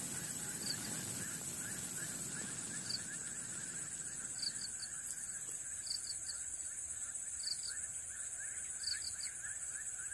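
Insect chorus: a steady high-pitched drone with a fast, even chirping beneath it, and short chirps in twos and threes every second or two.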